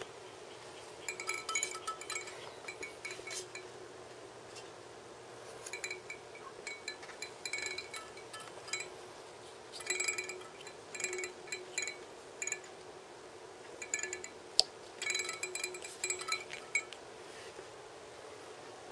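Light clicking and clinking of a Topcon AT-F3 auto level being handled and its knobs turned by hand, in several short bursts of small ringing clicks, with one sharper click about three-quarters of the way through.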